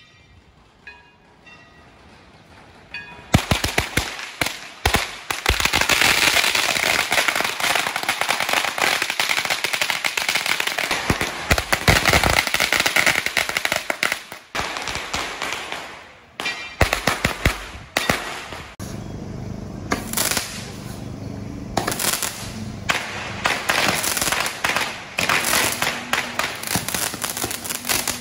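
Firecrackers (bakuchiku) going off on the street in long, rapid crackling runs of many small bangs, starting about three seconds in and carrying on with brief lulls.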